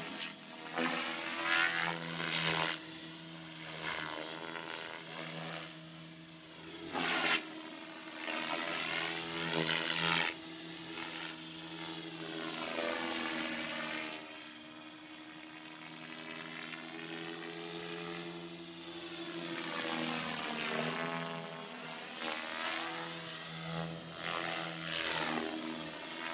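T550 electric RC helicopter in flight, its motor and rotor whine sweeping up and down in pitch as it manoeuvres, with several louder swells as it passes near. A thin high whine holds steady underneath.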